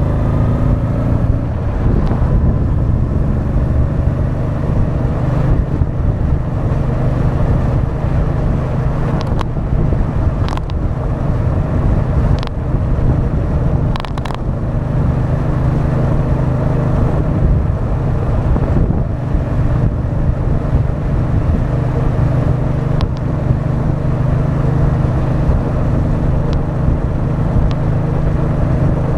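Honda Deauville 650's V-twin engine running as the bike is ridden, a steady engine note heard from the front of the motorcycle, with a few brief clicks in the middle.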